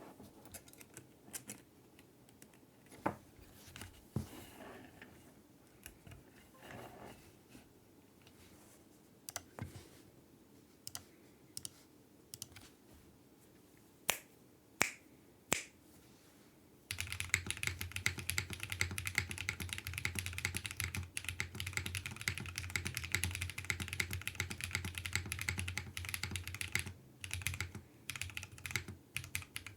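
Custom 60% mechanical keyboard with lubed Holy Panda tactile switches, an FR4 plate and GMK keycaps being typed on: slow, separate keystrokes for a little over half the time, then fast continuous typing.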